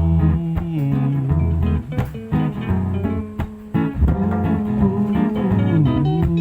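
Live guitar music playing an instrumental break with no singing, plucked and strummed chords over a stepping bass line.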